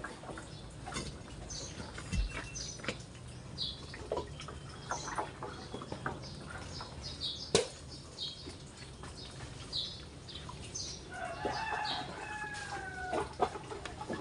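A steel bar striking and scraping in soil, with short knocks and one sharper strike about halfway through. Small birds chirp throughout, and a chicken gives a drawn-out falling call about 11 seconds in.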